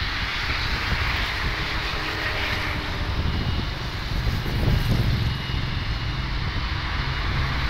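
Distant airliner engines, a steady rush of engine noise with a low rumble underneath.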